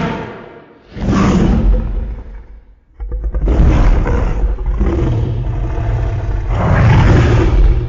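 Loud kaiju-style monster roar sound effects, deep and rumbling: one roar dies away in the first second, a second lasts about two seconds from a second in, then a longer one of about five seconds starts three seconds in.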